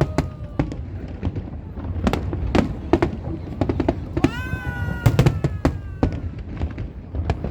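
Aerial fireworks bursting in quick succession, a rapid run of sharp bangs and crackles. About four seconds in, a long pitched wail slides slowly downward over the bangs for about a second and a half.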